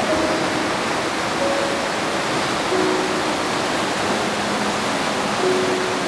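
Steady rush of Shirahige Falls and the snowbound river below it, with soft background music of slow, held notes laid over it.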